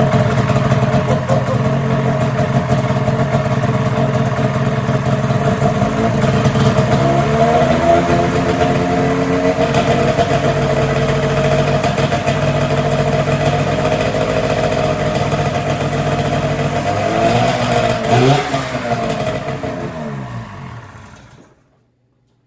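Polaris 440 Supersport snowmobile's two-stroke engine running loud through an exhaust pipe whose baffle has burned out. It is revved briefly about seven seconds in and again near eighteen seconds. It is then shut off and winds down to silence about a second before the end.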